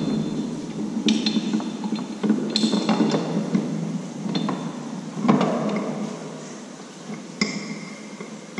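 Metal pliers working at the door of a large old oak wine barrel, scraping and clinking against the wood and its metal fittings, with several sharp clanks that ring briefly; the loudest comes about five seconds in.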